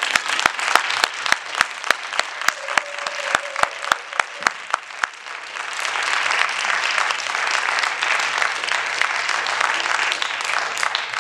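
Audience applause: a few sharp claps near the microphone, about four a second, stand out over scattered clapping for the first five seconds, then the whole audience claps densely and evenly.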